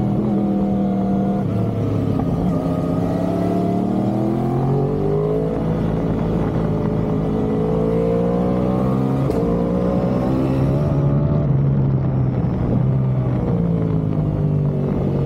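Yamaha R1 sportbike's inline-four engine running, its pitch climbing and falling back again and again as it is revved.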